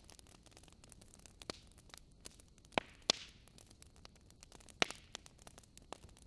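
Wood fire crackling in a fireplace: irregular sharp pops and snaps over a faint hiss, with the loudest pops about three seconds in and again near five seconds.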